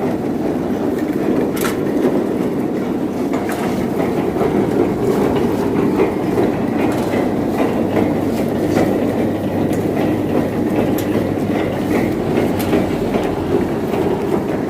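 Coconut husking machine running with a steady rumble and scattered, irregular clattering knocks.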